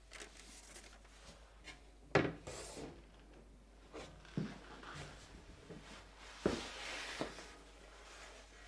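Quiet handling sounds on a work surface: a few light knocks, the sharpest about two seconds in and again about six and a half seconds in, with soft rubbing between, as the painting is readied for humidifying.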